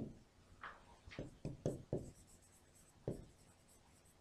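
Faint taps and short strokes of a stylus on an interactive touchscreen whiteboard as a colour is picked from the on-screen palette and a mark is drawn. There is one tap at the start, a quick run of four or five about a second in, and a last one near the end.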